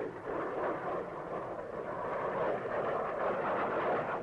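Steady jet aircraft engine noise: an even rush with no distinct whine or beat, slightly fuller near the end.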